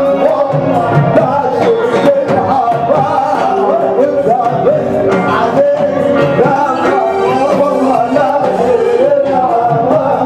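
Live Arabic dabke music played loud by a band, with a male voice singing a winding, ornamented melody over a steady dance beat.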